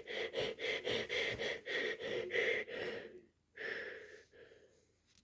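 A man snoring: a long breath of about three seconds that pulses about four times a second, then a shorter breath about three and a half seconds in.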